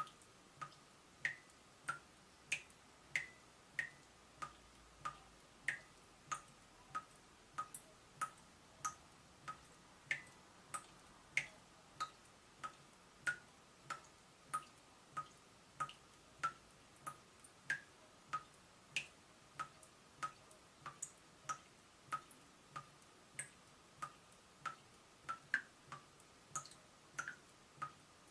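Water dripping steadily from a leaking tap, about one and a half drops a second, each drop a short plink.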